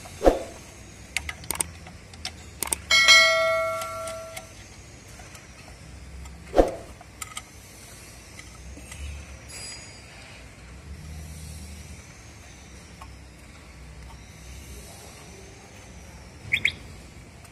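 Screwdriver working the terminal screws of a metal motor starter: scattered clicks and knocks of the tool on screws and casing, and about three seconds in a sharp metal clink that rings for over a second.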